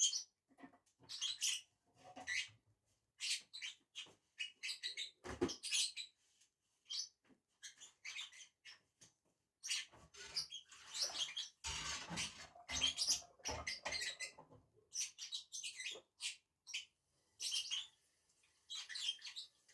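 Lovebirds giving short, high-pitched chirps and chatter in irregular bursts while feeding, with louder, scratchy noise bursts about five seconds in and again around twelve seconds.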